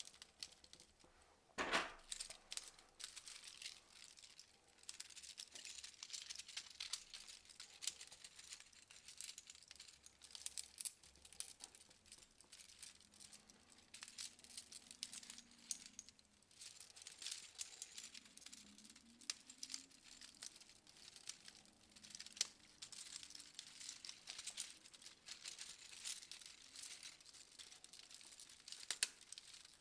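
3D-printed plastic Hoberman sphere pieces being handled and pushed together: a steady run of small clicks and rattles, with a sharper click about two seconds in and another near the end.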